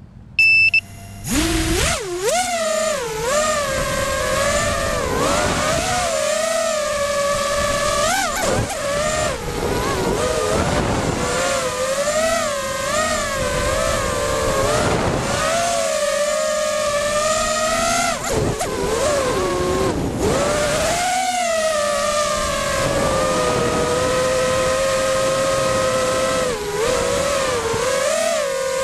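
Four Cobra 2204 2300 KV brushless motors spinning HQ 5x4x3 three-blade props on a 5-inch FPV racing quadcopter. They spin up about a second in after a short beep, then whine and swoop up and down in pitch with every throttle change in flight, heard from the onboard camera.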